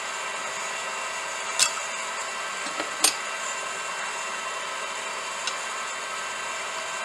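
Steady hiss with a few sharp metallic clicks, two of them louder, about a second and a half apart, as a hot quarter-inch steel round bar is worked and bent by hand.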